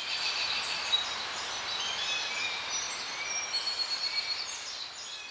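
Forest ambience: a steady hiss with many birds calling, short high chirps and whistles at many different pitches.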